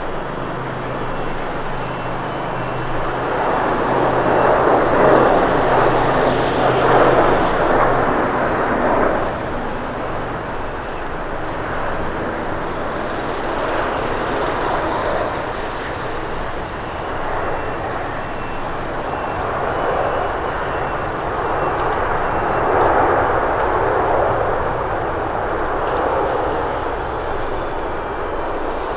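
Jet airliner engines rumbling as an Airbus A350-900 lands, with another widebody jet taxiing close by. The noise is loudest from about four to nine seconds in, then rises and falls again more softly.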